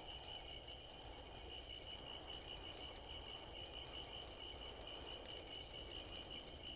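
Crickets chirping: a steady, high, evenly pulsing trill over a faint low hiss.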